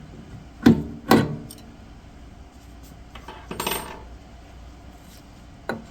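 Small metal parts clinking: two sharp metallic clinks with a short ring about a second in, a brief scrape in the middle, and a light click near the end, as an Allen wrench works the set screw on a drill press pulley.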